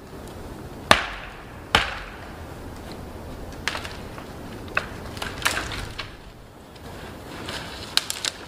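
Dead wood being broken for firewood: two loud, sharp cracks about a second in, under a second apart, then fainter snaps and knocks at uneven intervals.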